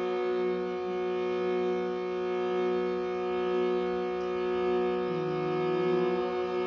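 Meditative drone music: a steady chord of held tones rich in overtones, unchanging in loudness, with a brief wavering, bending tone added about five seconds in.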